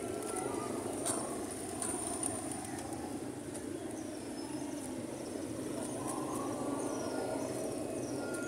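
Outdoor street ambience: a steady low rumble of traffic, with a bird chirping in short, repeated falling notes through the second half and a faint high steady whine underneath.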